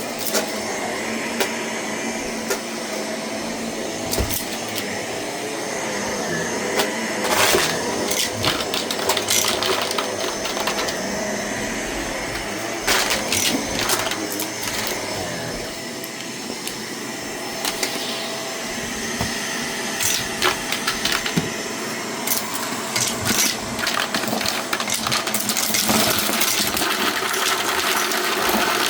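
Shark vacuum cleaner running steadily, with frequent sharp clicks and rattles of debris being sucked up.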